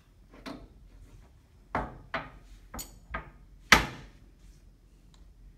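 Half a dozen sharp knocks and clacks from an air track and its supports being handled and adjusted on a lab bench, one with a brief metallic ring, the loudest about four seconds in.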